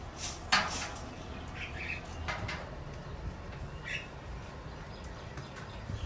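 Scattered clicks and short scrapes of cooking utensils at a street-food stall over a steady low background hum, the loudest a sharp clatter about half a second in.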